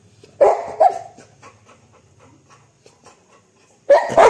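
Labrador retriever barking: two short barks, a pause, then two more barks close together near the end.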